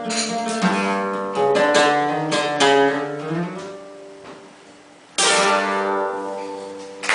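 Acoustic guitar playing the closing bars of a song: plucked notes with a sliding run about three seconds in, fading away. About five seconds in a final chord is struck and left to ring out.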